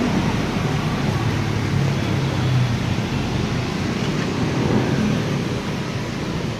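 Steady rushing wind noise on the microphone, mixed with street traffic, with a faint low engine hum in the first few seconds.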